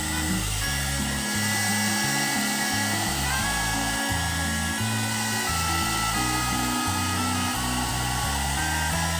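Hot air brush hair dryer blowing steadily, under upbeat background music with a stepping bass line and a simple melody.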